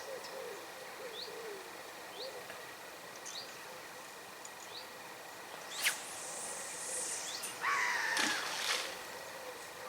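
Small birds chirping in short rising notes about once a second, with lower calls beneath. About six seconds in there is a sharp click and a hissing rush, then a louder whirring, scraping sound about two seconds later.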